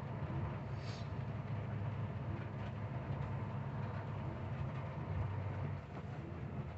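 Heavy truck's diesel engine running steadily at low revs, heard from inside the cab while it crawls in slow traffic on a wet road, with a brief high squeak about a second in.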